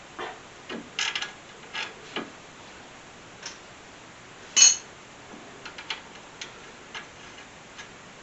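Scattered metallic clicks and clinks of hand tools on the front suspension while a sway bar link is fitted to a strut. A quick cluster comes about a second in, and the loudest, a single ringing clink, comes about four and a half seconds in.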